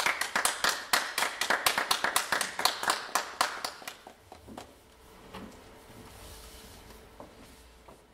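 A small audience applauding, individual claps distinct, dying away about four seconds in.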